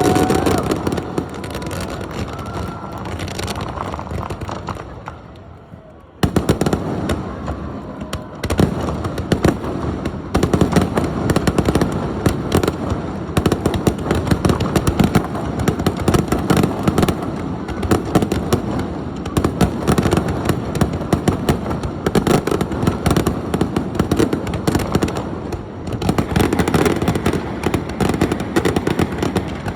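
Fireworks display: a dense barrage of shell bursts, bangs and crackling. It dies down about four seconds in and starts again abruptly about six seconds in, then keeps going thick and fast.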